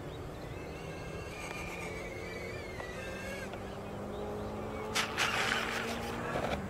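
Electric ducted fans of a small RC Boeing 747 model running with a steady whine and hum during a landing approach. A short, louder burst of noise about five seconds in, around touchdown on the grass.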